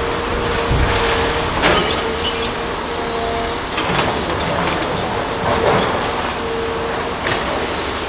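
Aerial ladder truck's engine running steadily, with a low tone that comes and goes several times and a few sharp knocks and clinks.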